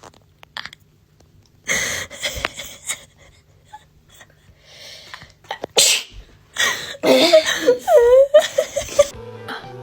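A woman sneezing several times, set off by a nasal swab for a COVID-19 test. The sneezes come as separate sharp bursts, then as a quicker run with voiced, wavering sounds near the end.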